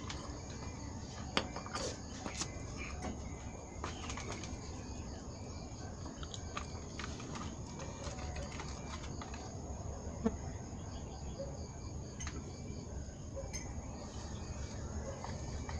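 Quiet outdoor ambience: a steady low rumble with faint bird calls, and two sharp clicks, one about a second and a half in and one about ten seconds in.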